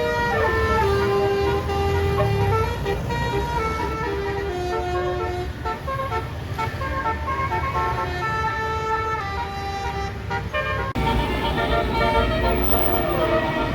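Bus telolet 'basuri' melody horn, a set of roof-mounted air-horn trumpets, playing a tune of held notes that step up and down in pitch over a low engine rumble. About 11 seconds in, the sound cuts abruptly to another horn tune.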